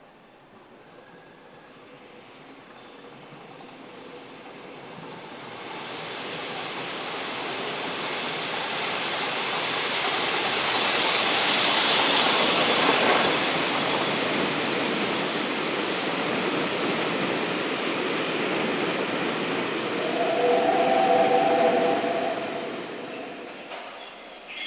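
Passenger train running into the station, its wheels on the rails building from faint to a steady rumble over about ten seconds. About 20 seconds in there is a short pitched tone, and near the end a thin high squeal as the brakes or wheels squeal.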